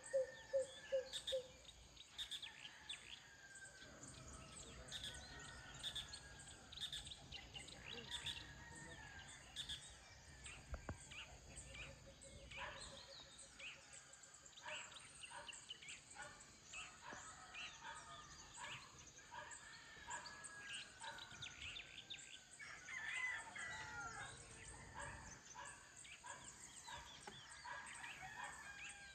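Faint dawn chorus of many birds chirping and calling, with short whistled notes and quick twitters overlapping throughout. A rapid run of low, evenly repeated notes is heard at the very start.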